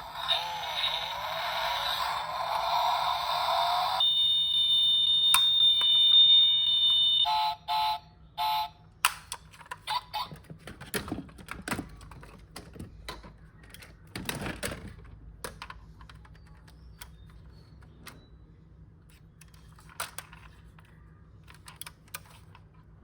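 Electronic sound effects from a toy car's sound module: a noisy engine-like burst, then a steady high beep for about three seconds and four short beeps. These are followed by scattered light clicks and taps from the plastic car and its packaging being handled.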